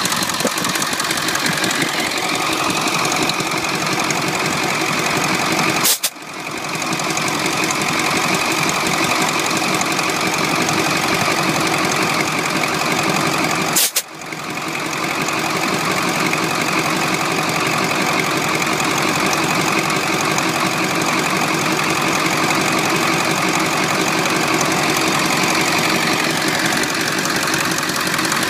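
Ford 7.3 Powerstroke V8 turbo diesel engine turning steadily during a compression test on cylinder number one, one of the two cylinders found running rough from wear. The sound drops out briefly twice, at about 6 and 14 seconds.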